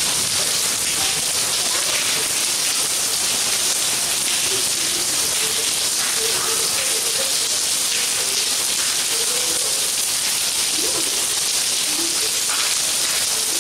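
Steady rain falling on wet paving, an even hiss.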